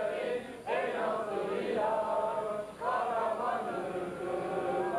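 A crowd of people singing a song together in unison, in phrases with short breaks between them, about half a second and nearly three seconds in.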